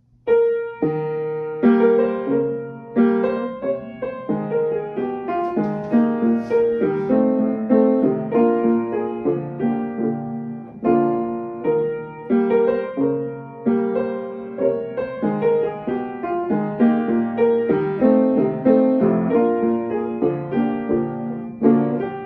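Upright piano played by hand: a continuous run of chords and melody notes, each struck note ringing and decaying, starting just after the opening.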